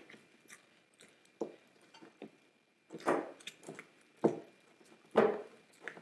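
Spatula stirring thick, partly set microwave-cooked play clay dough in a glass jar: irregular sticky squelches and scrapes, the loudest about three and five seconds in.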